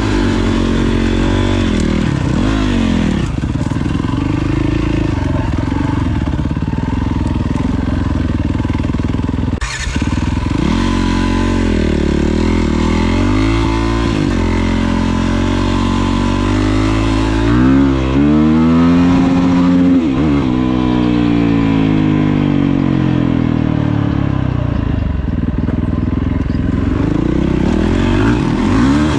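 Four-stroke single-cylinder dirt bike engine under way, its pitch rising and falling again and again as the throttle is opened and closed, with a brief break in the sound about ten seconds in.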